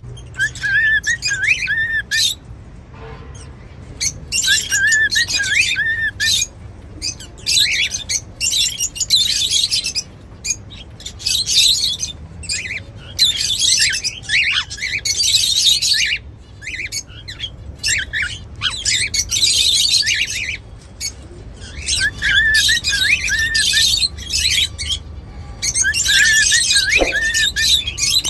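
Cockatiels calling: repeated bursts of harsh, screechy chatter, with short runs of quick whistled notes now and then.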